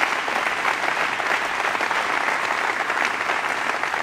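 Audience applauding steadily, the dense clapping of many hands.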